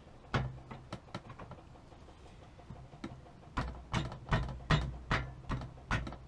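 Knocks as the greased swing-arm pivot bolt of a Honda CBR1000F is worked through the frame and swing arm: a few light knocks, then from about three and a half seconds in a steady run of dull knocks about three a second.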